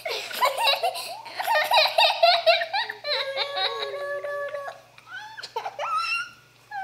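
Children laughing and giggling, high-pitched, with a drawn-out held voice in the middle and two brief lulls near the end.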